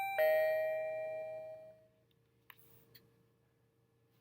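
Electronic doorbell chime sounding a two-note ding-dong: a short higher note, then a lower note that rings out and fades over about two seconds. A few faint clicks follow.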